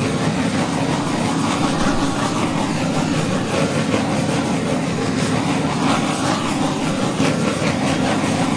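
Handheld gas torch flame hissing steadily as it is played over wet poured acrylic paint to pop air bubbles.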